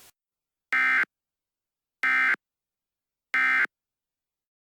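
Emergency Alert System end-of-message (EOM) tones: three short, identical bursts of digital SAME data tones, a little over a second apart, marking the end of the alert broadcast.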